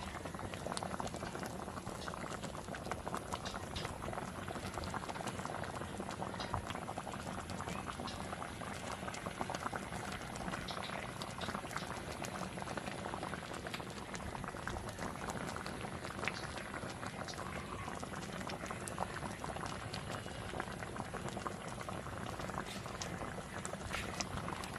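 Water boiling hard in a metal pot with cut banana pieces: a steady bubbling with many small pops.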